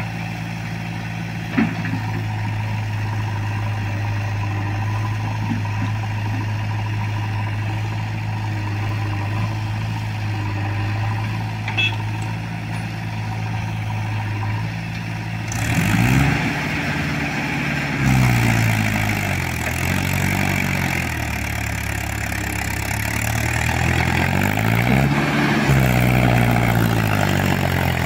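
Diesel engines of a Mahindra tractor and a backhoe loader idling steadily. About halfway through, the engine note starts climbing and falling again and again as the tractor hauls its fully loaded trolley away.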